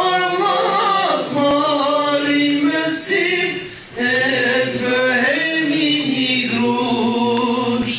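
Voices singing together in long sung phrases, with a short break for breath about four seconds in.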